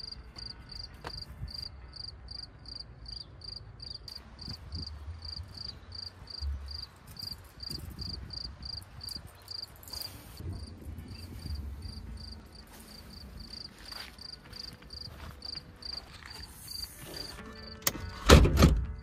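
A cricket chirping steadily, about three to four short high chirps a second, over a low rumble. The chirping stops about three seconds before the end, and a short loud burst of noise follows near the end.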